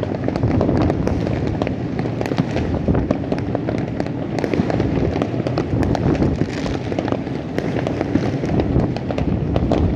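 Many fireworks going off across a city at once: a dense, unbroken crackle of sharp pops and bangs over a steady low rumble of distant explosions.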